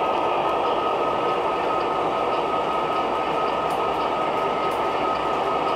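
O gauge model diesel locomotives and train cars rolling past close by: a steady rumble of metal wheels and motors on the track, with a steady high whine over it and a few faint clicks.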